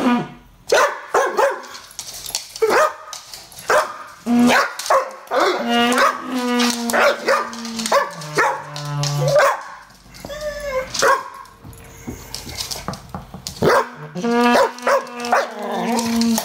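English Bull Terrier cross barking over and over at a garden hose in play, with longer held, steady-pitched calls about five to nine seconds in and again near the end.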